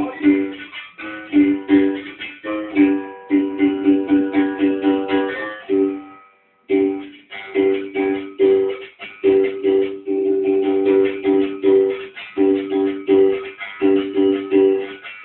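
Gunga berimbau, the deep-voiced capoeira musical bow, struck with a stick in a rhythmic toque, alternating between its two notes. It breaks off briefly about six seconds in, then picks up again.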